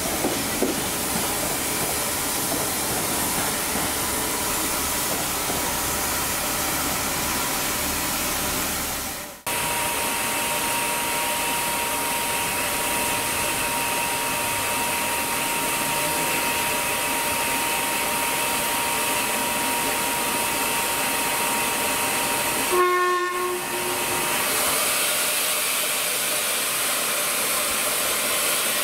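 Railway train at a station platform: a steady hiss with a faint steady whine, broken off sharply once about a third of the way in. A short pitched note sounds briefly near the end.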